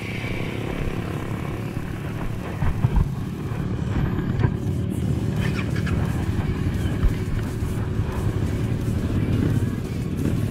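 Suzuki King Quad 750 ATV engine running steadily at low speed while the quad is moved, with a few brief knocks.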